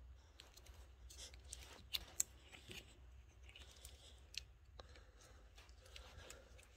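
Faint, scattered scrapes and small clicks of a Swiss Army knife blade slicing along an old, dried-out rubber handlebar grip to cut it off.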